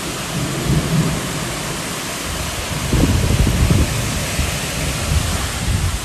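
Strong wind gusting through heavy, wind-driven rain: a steady rushing hiss with low rumbling surges as the gusts come, the strongest about three seconds in.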